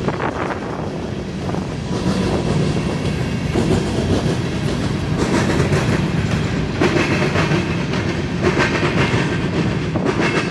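Norfolk Southern freight train of covered hopper cars rolling past, its steel wheels rumbling on the rails with a steady run of clicks and knocks over the rail joints.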